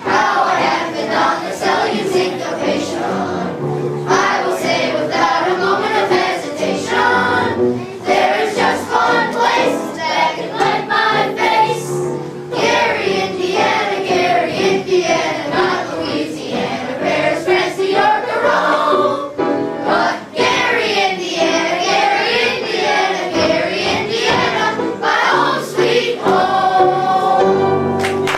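A chorus of young voices singing a song together, held sung notes wavering in pitch throughout.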